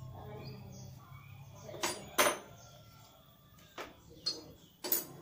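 Sharp metal clinks and knocks, about five in all, from handling the parts of a handheld electric planer during blade removal and setting them down on a workbench.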